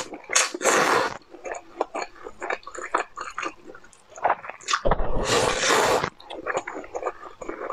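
Noodles being slurped and chewed close to a clip-on microphone: two long slurping pulls, about a second in and again past the middle, with wet chewing and mouth clicks between them.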